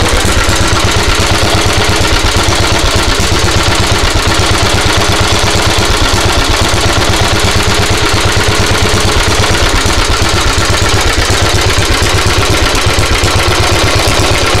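Petter A1 single-cylinder petrol stationary engine running steadily, with an even firing beat that holds the same pace throughout.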